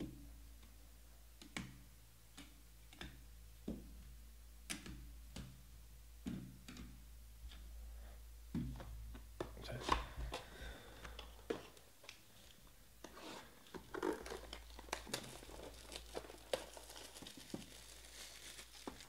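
Soft taps as a stack of trading cards is handled, then about halfway through a crinkling and tearing as the plastic shrink wrap is stripped off a box of baseball cards.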